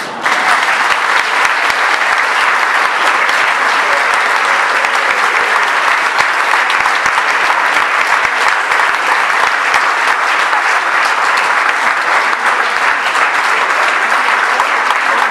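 Audience applauding at the close of a song: dense, steady clapping that breaks out just as the singing stops.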